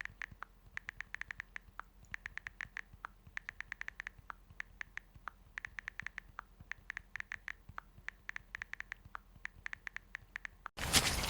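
Rapid, light clicks in irregular clusters of quick ticks with short pauses between them. Near the end a louder, rougher sound cuts in.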